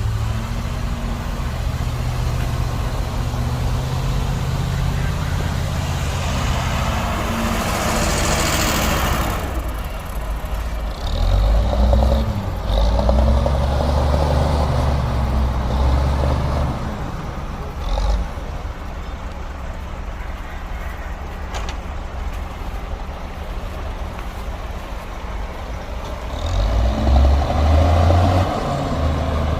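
Heavy diesel earthmoving machinery, a bulldozer and dump truck, running steadily and revving up and down under load, twice swelling louder. A loud hiss comes about eight seconds in, and there is a short knock about eighteen seconds in.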